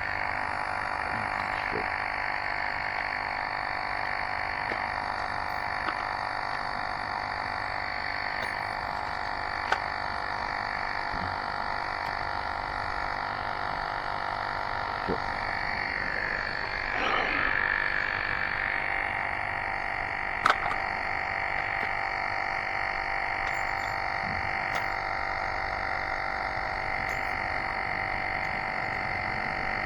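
Electric tire pump running steadily with an even buzz as it inflates an e-bike tire, with a few sharp clicks and a brief swell in the sound about two-thirds of the way through.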